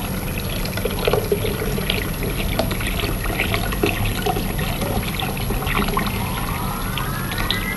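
Tuak, Dayak rice wine, poured from a bottle into a ceramic bowl: a steady splashing pour with many small crackling splashes. Near the end a rising whistling tone joins it.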